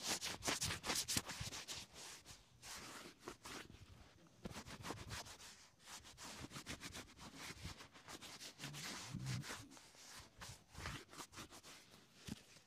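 A cloth rubbing briskly over a leather shoe's sole and upper, in quick scratchy strokes that are loudest in the first second or two.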